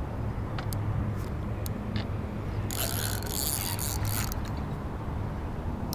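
Okuma 4000-size spinning reel being cranked against a heavy hooked carp, its mechanism giving off scattered ticks, with a louder rasping burst lasting over a second a little under three seconds in.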